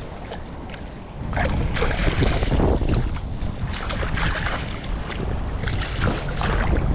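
Wind buffeting the microphone, with a heavy rumble that strengthens about a second in and crackling gusts over it.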